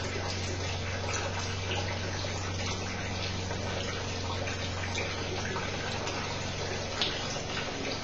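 Thin jet of water from a small orifice falling steadily into a tub of water: continuous, even splashing over a low steady hum.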